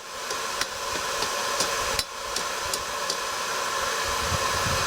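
Forge fire running under forced air: a steady rushing noise, with a string of light sharp ticks through the first few seconds.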